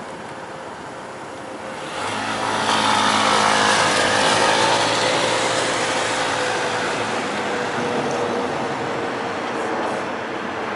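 Road traffic at a pedestrian crossing: a motor vehicle passes close by, its engine and tyre noise swelling about two seconds in and then slowly fading.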